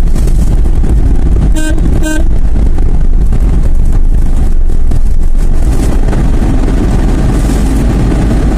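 Two short vehicle-horn toots, about a second and a half and two seconds in, over the steady low rumble of a vehicle on the move.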